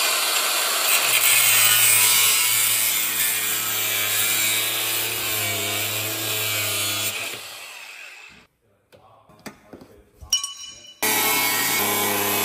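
Handheld power tool cutting metal. It runs steadily for about seven seconds, winds down, and a few light clicks follow. A second run starts near the end.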